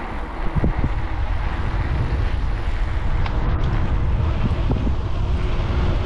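Wind buffeting an outdoor microphone: a steady, fluttering low rumble.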